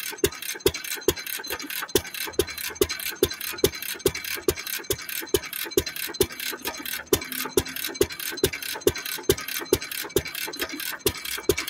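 1917 Fairbanks Morse Model Z 3 hp single-cylinder throttle-governed engine running steadily, a regular beat of about four firing strokes a second. Its water injector is shut off, so it is running dry to clear the water out of the system before shutdown.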